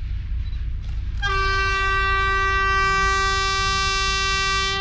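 Horn of an SU46 diesel locomotive sounding one long, steady single-tone blast, starting about a second in and lasting nearly four seconds.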